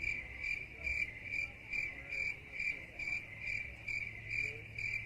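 Cricket chirping sound effect: one high chirp repeating a little over twice a second, steady throughout, cutting in and out abruptly over otherwise silent audio.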